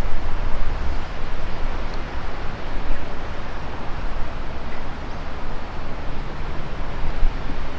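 Wind buffeting the camera microphone: a steady, deep rushing noise that swells and dips.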